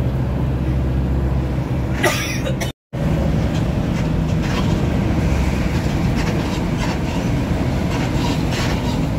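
Intercity coach bus running at speed: a steady engine drone and road rumble. A short hiss comes about two seconds in, and the sound cuts out for a split second just before three seconds.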